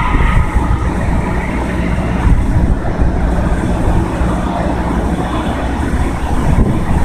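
Steady low rumble and wind buffeting the microphone while the FDNY fireboat Three Forty Three runs its water cannons.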